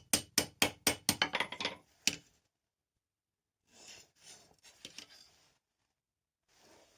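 Hand hammer striking hot steel on an anvil in a quick run of about ten ringing blows, some four or five a second, that stops about two seconds in. Softer, scratchy handling sounds follow in the middle and near the end.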